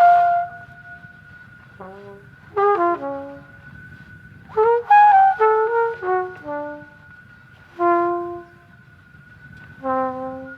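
A trumpet playing short, separated phrases of a few notes each, about five of them, with pauses between. A steady high tone is held underneath throughout.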